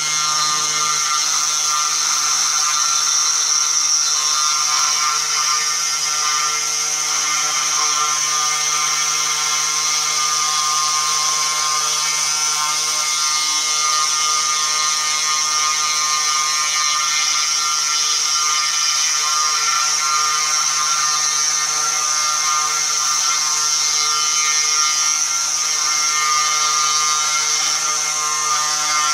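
Mini CNC router's spindle motor running with a steady high whine while its end mill carves into a wooden board.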